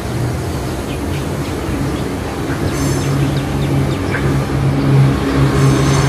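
A steady low engine hum, like a motor vehicle running, growing a little louder about halfway through, with a few faint short bird chirps.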